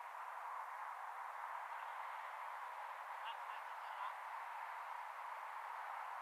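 Steady hiss of background noise, with a few faint short high chirps about three to four seconds in.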